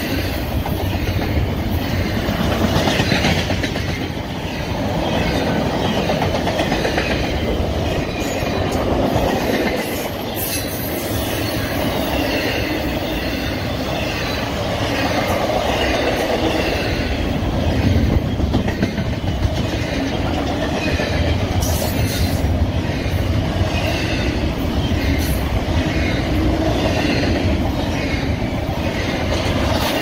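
Norfolk Southern intermodal freight train's double-stack well cars rolling past: a steady rumble of steel wheels on rail with clickety-clack over the rail joints and occasional sharp clicks.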